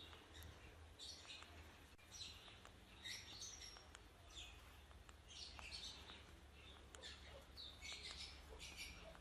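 Faint high chirps from a parrot, short calls coming in clusters about once a second.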